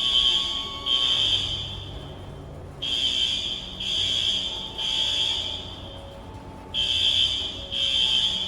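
Apartment building fire alarm sounding a loud, high electronic tone in groups of three blasts, each about a second long, with a pause of about a second between groups. It is heard through a security camera's microphone.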